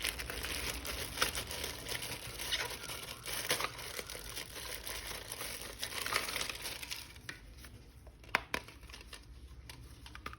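Toy packaging crinkling and rustling as it is handled, thinning out after about seven seconds, then two sharp clicks.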